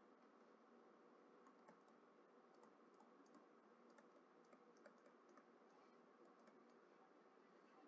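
Near silence: faint room tone with scattered light clicks of a stylus tapping on a touchscreen during handwriting.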